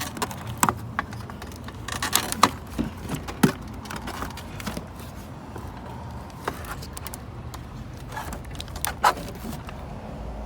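Plastic parts and wiring harness being worked back into place by hand: scattered clicks, knocks and rattles, busiest about two to three and a half seconds in and again near the end.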